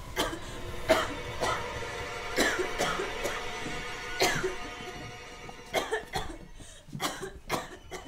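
A woman coughing repeatedly in harsh fits, with a quicker run of coughs near the end, over a film score of sustained held tones.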